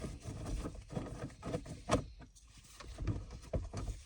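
Scattered clicks, taps and rustles of hands and a tool working on a car's plastic center console trim, with one sharper click about two seconds in.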